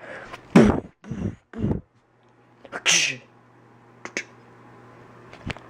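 A metal school locker being opened with a stiff, hard-to-open lock: several loud rattles and bangs from the lock and door in the first couple of seconds and again about three seconds in, then sharp single clicks near the end.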